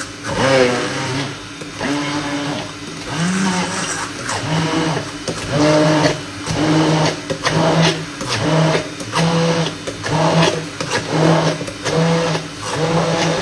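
Hand-held immersion blender puréeing strawberries in a tall plastic beaker. Its motor note dips and rises about twice a second as the load on the blade changes.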